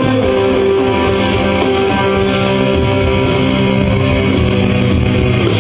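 Electric guitar playing a loud rock part of held, sustained notes.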